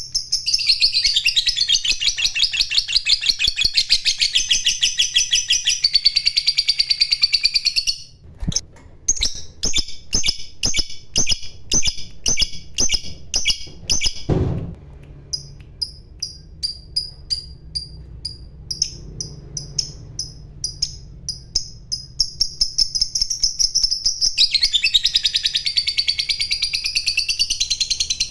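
Lovebird giving its long 'ngekek' call: a rapid, high chattering trill held for about eight seconds. It then breaks into a string of separate sharp chirps, and near the end it rises into another long trill.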